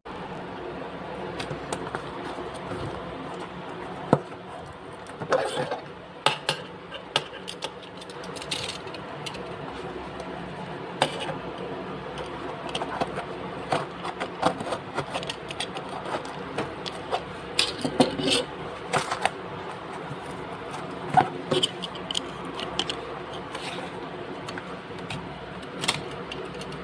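Handling noise: small plastic things rubbed and scraped, with irregular sharp clicks scattered throughout over a steady low hiss.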